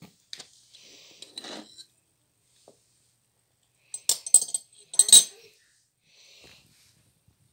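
Small ceramic food dishes clinking: two short clusters of sharp clinks about a second apart.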